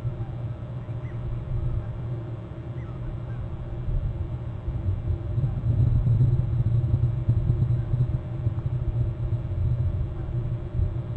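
Steady low rumble with a fluctuating level, with two faint short high calls about one and three seconds in.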